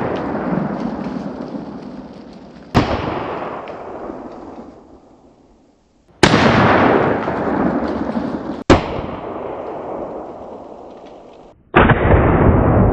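Shotgun blast from a Mossberg 12-gauge bolt-action shotgun firing 00 buckshot, heard in slowed-down replays: four sudden booms about every three seconds, each fading away over a couple of seconds.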